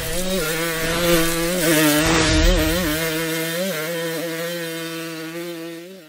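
Dirt bike engine running at a steady pitch with small blips of the throttle, slowly fading out near the end.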